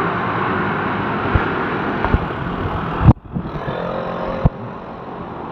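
Street traffic with motor scooters riding through an intersection, a steady engine and tyre noise. About three seconds in a sharp click cuts the sound and it drops away, with another click a second and a half later, after which the traffic is quieter.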